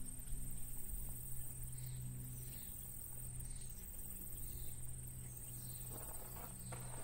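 Faint rural pasture ambience: a steady high insect trill, with a low steady hum, a few faint bird chirps and light low wind rumble on the unshielded microphones.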